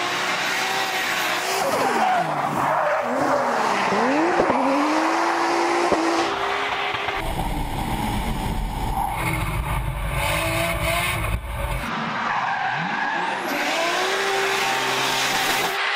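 Toyota Supra drift car at high speed, its engine revving up and down repeatedly over tyre squeal as it slides. The sound changes abruptly twice.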